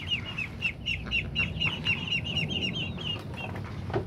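Young poultry peeping: a rapid run of short, high, falling chirps, several a second, that stops about three and a half seconds in.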